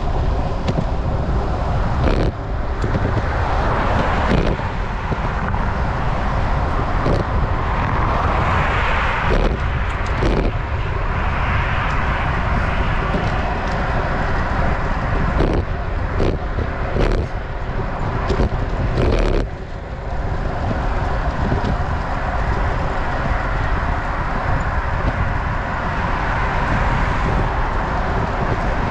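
Wind rushing over an action camera's microphone on a moving road bike, with road noise and cars swelling past several times. A few sharp knocks, several of them close together about two-thirds of the way through.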